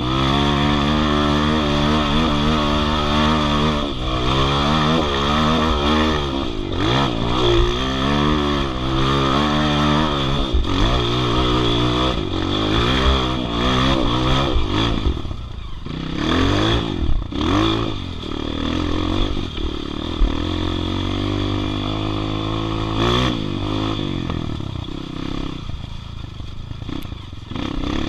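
Dirt bike engine ridden on a trail, heard from the rider's camera, revving up and down through the gears. In the second half the revs drop and swoop back up several times.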